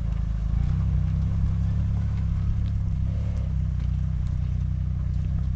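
Off-road 4x4 engines running with a steady low drone as the vehicles work up a loose rocky hill climb.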